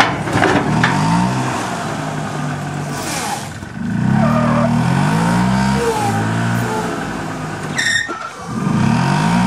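Yamaha golf cart engine revving up in three surges under load as the cart tries to climb onto a trailer, with a sharp rattle just before the last surge.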